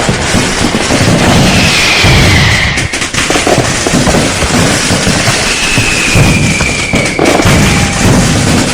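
A dense, continuous barrage of firecrackers and fireworks: rapid overlapping bangs and crackling with no pause. High whistles sound over it, falling slightly in pitch about two seconds in and again from about five and a half seconds.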